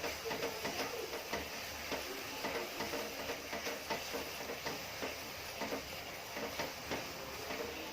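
Spatula stirring a thick ginger and jaggery mixture cooking in a pan on high heat: irregular soft scrapes and clicks over a steady hiss.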